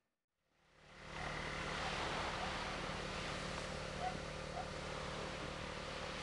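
Brief silence, then a steady outdoor background fades in: an even hiss over a low steady hum, with a few faint short chirps from about two seconds in.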